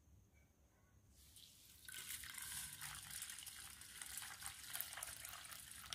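Water poured in a stream from a vessel into a stainless-steel bowl of washed black rice to soak it, splashing onto the rice. The sound is faint, grows fuller about two seconds in and stops suddenly near the end.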